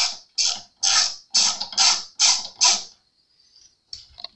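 A hand tool working a tight tuner screw on an acoustic guitar headstock: seven short rasping strokes, about two a second, followed by a couple of small clicks near the end.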